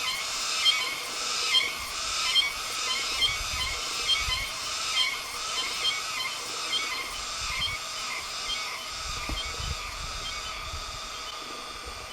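Cicada singing, a high buzzing song pulsing a little faster than once a second, which slowly fades away towards the end.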